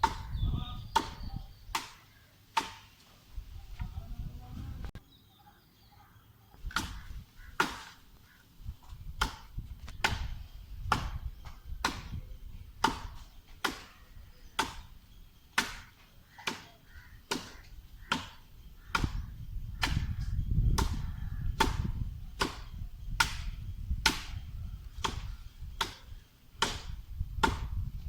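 Repeated chopping blows of a blade biting into a coconut palm trunk, about one and a half strikes a second, with a short pause a few seconds in before the strokes resume steadily.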